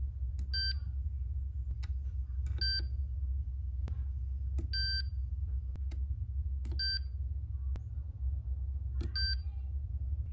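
Short electronic beeps, one about every two seconds, five in all, each a clear high tone, over a steady low hum.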